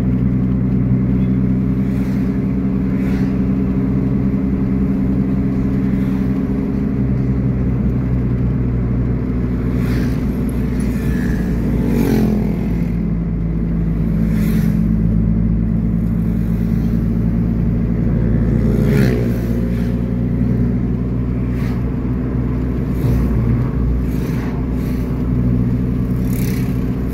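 Car engine and road noise heard from inside the cabin while driving, a steady drone whose pitch drops and changes twice, a little under halfway through and about two-thirds through, with a few faint knocks.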